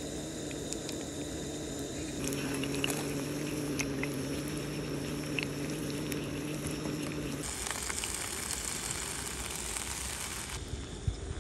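Battered pork pieces (guobaorou) deep-frying in hot oil in a small pot, the oil sizzling and bubbling with scattered small crackles. About seven and a half seconds in, the sound changes to a brighter, steadier hiss.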